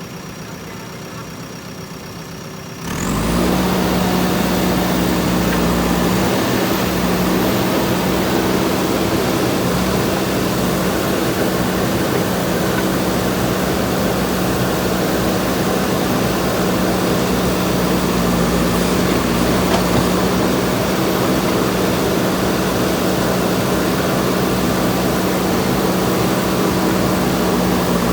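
Diesel engine of a JCB backhoe loader running at a steady pitch. It is quieter for the first few seconds, then about three seconds in it suddenly becomes loud and stays steady.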